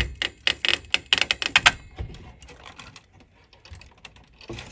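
A quick run of light clicks and rattles, dense for the first two seconds and then scattered, from a stiff circuit-board connector and board inside a cassette deck being worked back and forth to free it.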